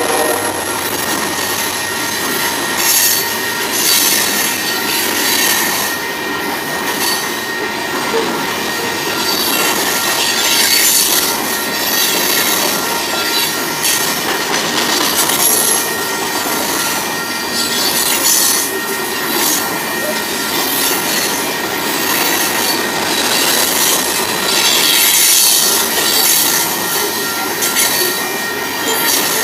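Freight train's open-top cars rolling past close by: a loud, steady rushing of steel wheels on rail that swells and fades every second or two, with a thin, steady high wheel squeal over it.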